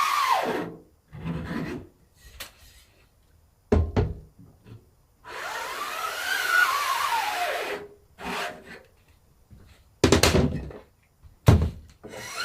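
A tool drawn in long scraping strokes across a taut silkscreen mesh during screen-plate making, each stroke carrying a squealing tone that rises and then falls: one stroke ends about half a second in, another runs from about five to eight seconds. Short sharp knocks fall about four seconds in and twice near the end.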